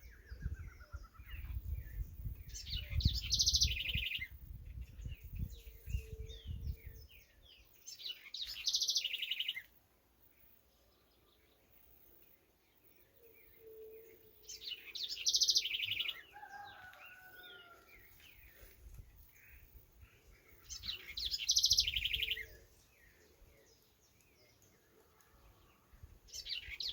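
Birds singing: one bird repeats a loud, fast-trilled high song phrase of about a second and a half, roughly every six seconds, while other birds chirp faintly in between. A low rumble runs under the first seven seconds.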